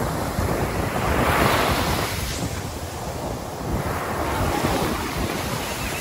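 Sea surf breaking and foamy waves washing up and back over the sand at the water's edge, with wind buffeting the microphone. The wash swells about a second in and again past the middle.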